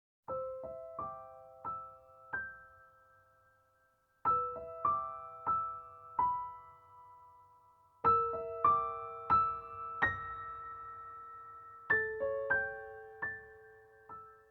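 Background piano music: a slow melody of single struck notes that ring and fade, played in short phrases of four to six notes that start about every four seconds.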